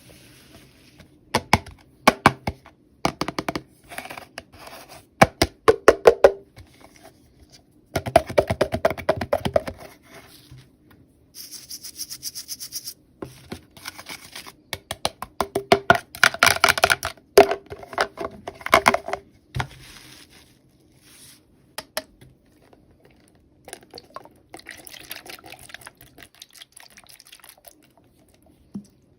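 Hands handling small plastic toy pieces and packaging: irregular clicks and taps, with stretches of crinkling and rustling about eight seconds in and again about sixteen seconds in.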